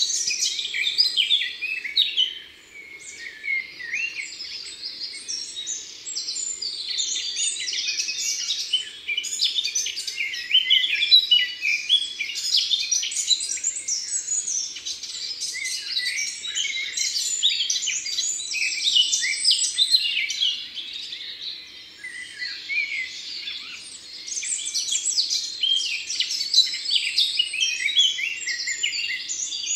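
A dense chorus of small birds chirping and twittering without a break, many short quick calls overlapping.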